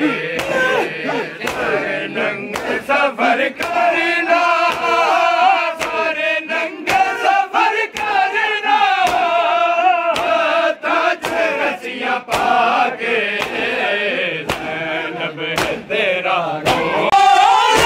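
Matam: a crowd of men slapping their bare chests in unison, a sharp slap in a steady beat of a bit over one a second, over men's voices chanting a mourning lament (nauha) together.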